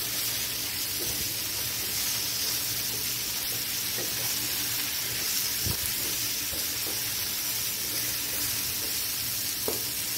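Eggplant wedges sizzling steadily in hot oil and spice paste in a nonstick pan while a wooden spatula stirs them, with a few light scrapes of the spatula.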